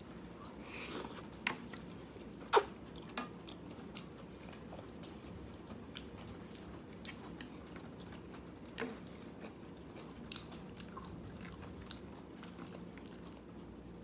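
A person eating black bean noodles (jjajangmyeon): chewing and mouth sounds, with a few sharp clicks, the loudest about two and a half seconds in, over a steady background hiss.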